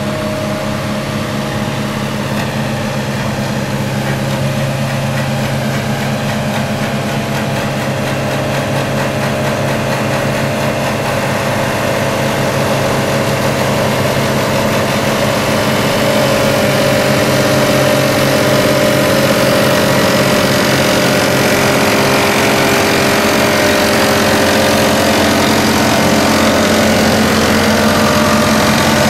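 CAT 277C compact track loader's diesel engine running steadily while it pushes a front-mounted grader blade through loose soil, growing gradually louder as the machine comes closer.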